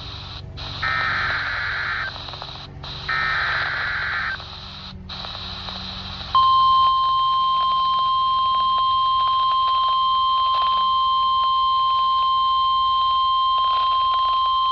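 NOAA Weather Radio Emergency Alert System activation received on a weather radio: two buzzy, warbling bursts of the SAME digital header, each about a second long, then, about six seconds in, the steady 1050-hertz warning alarm tone starts and holds, over faint radio hiss. This header and tone announce a severe thunderstorm warning.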